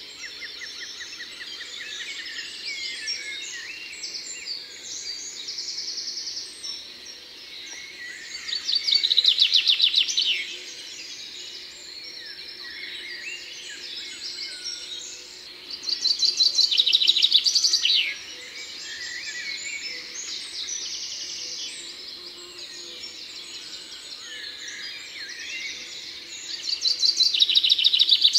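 Songbirds singing: three loud, rapid trilling song phrases of about two seconds each, roughly eight to ten seconds apart, with softer twittering and chirping calls from other birds in between.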